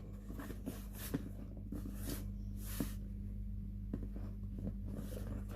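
Cardboard sneaker box being handled: a few faint taps and a soft rustle over a steady low hum.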